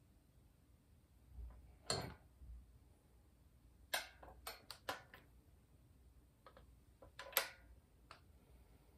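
Hand tools and metal parts at a Porsche 911 engine's camshaft sprocket giving a scattered run of sharp clicks and clinks, one about two seconds in, a quick cluster around four to five seconds, and the loudest near the end.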